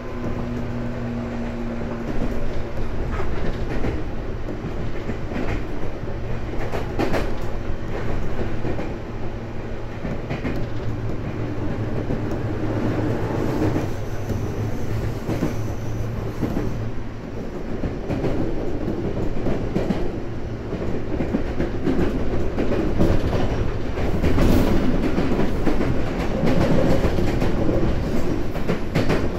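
JR 415 series electric multiple unit running, its wheels clicking over rail joints. A steady low hum is heard alongside and dies away about halfway through.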